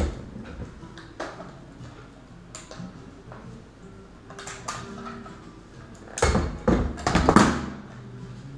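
Metal clicks and clatter of a SIG 550-series rifle being handled and taken apart by hand, as receiver parts and pins knock and slide together. Scattered single clicks, then a louder run of rattling clanks about six to seven and a half seconds in.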